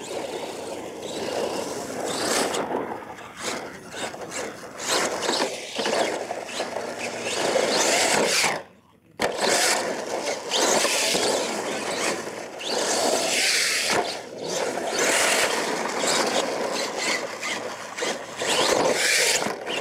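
R/C monster truck driving on a loose dirt track: its drive motor and gears running while the tyres scrape and scrabble over the dirt, swelling and easing as it speeds up and turns. The sound cuts out briefly a little before halfway.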